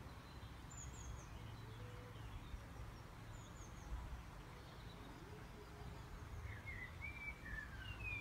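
Faint birds chirping in the background over a steady low rumble of outdoor noise, with a quick run of brighter chirps near the end.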